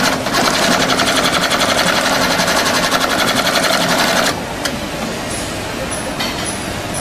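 GR-268 double-thread seated inseam sewing machine stitching a shoe in a rapid, even rhythm, stopping abruptly a little over four seconds in. A quieter steady hum with a few light ticks follows.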